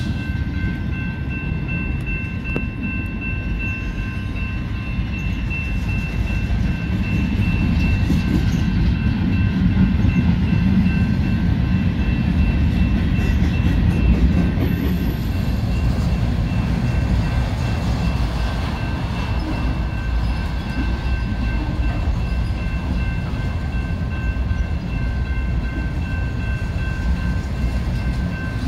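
Freight train cars rolling past at a grade crossing: a steady low rumble and clatter of wheels on rail that swells midway. Over it runs a steady high ringing tone.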